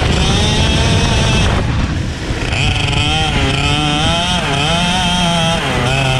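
Racing kart engine running at high revs. It drops away briefly about two seconds in as the throttle is lifted, then pulls up again, its pitch rising and dipping a couple of times.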